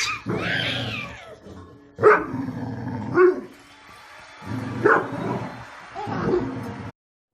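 A dog barking several times in short separate bursts, with the sound cutting off suddenly near the end.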